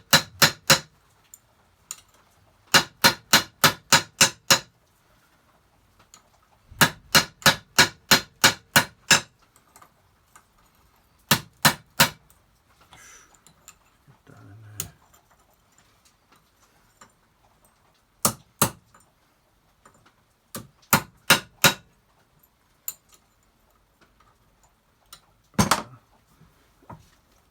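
Hammer striking a bent metal hasp held in a vise to straighten it, with sharp metal-on-metal taps. The taps come in quick runs of several blows, about four a second, separated by pauses, with fewer, scattered taps later on.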